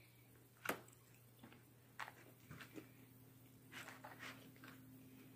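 Faint chewing of fast food, with a few small clicks and mouth sounds, the sharpest click just under a second in, over a low steady hum.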